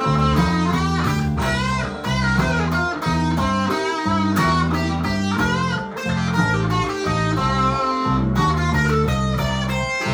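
Electric guitar solo on a Stratocaster-style guitar, with several notes bent up in pitch, played over a steady bass line.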